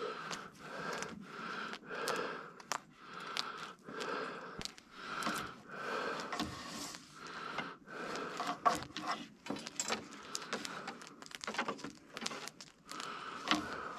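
Two harnessed horses eating from the bed of a utility vehicle: soft chewing and crunching about once a second, with small clicks and light jangling of harness hardware.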